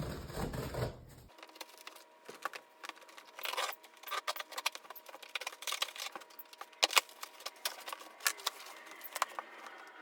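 A blade cutting the packing tape and cardboard of a shipping box, with irregular scraping strokes and sharp clicks and crackles of cardboard.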